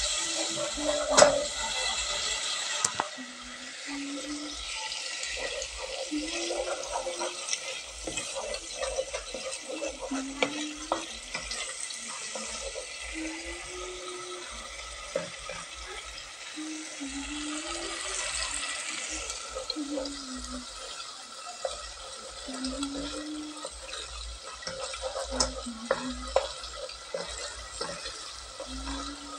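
A spoon stirring and scraping a tomato and onion base in a non-stick pot, with a steady sizzle of the mixture frying and frequent short scrapes against the pot.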